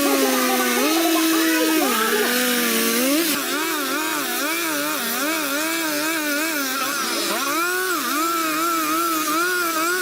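A chainsaw engine running under changing load, its pitch rising and falling over and over as it cuts. The sound shifts about a third of the way in, and the pitch then wavers faster and more evenly, about two to three times a second.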